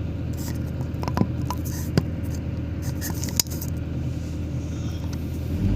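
Excavator's diesel engine running steadily, with a few sharp clicks and knocks along the way. Near the end the engine note gets louder.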